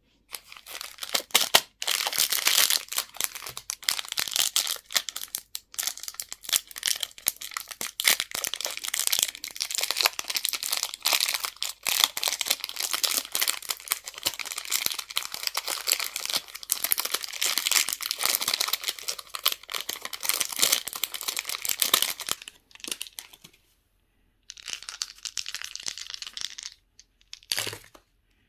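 Crinkly candy wrappers being handled and torn open, a dense crackling that stops near the end and then comes back in two short bursts.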